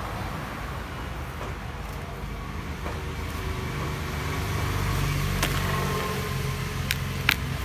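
Hands scooping loose soil and dropping it into a plastic tub, the soil crumbling as it falls, with a few sharp clicks near the end. A low rumble underneath grows louder about halfway through.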